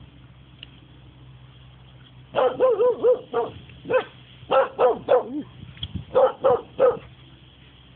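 A Norwegian elkhound barking: after a quiet start, a rapid run of about a dozen short barks begins about two and a half seconds in and lasts about four and a half seconds.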